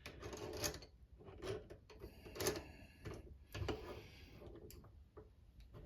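Irregular faint metallic clicks and brief scrapes of slip-joint pliers gripping and working the bent steel of a pair of locking pliers to straighten it.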